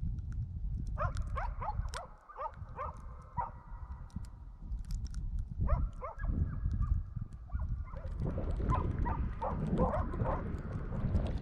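Laika hunting dogs barking in runs of quick, repeated barks, baying at a moose they are holding at bay. Underneath is a steady low rumble of wind on the microphone.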